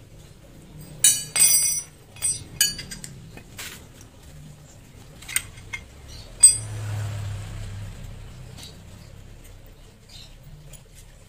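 Metal hand tools and parts clinking and ringing while an engine mount is being unbolted: a cluster of ringing clinks about a second in, several sharper clinks over the next few seconds, then one loud clink followed by a short stretch of rough scraping.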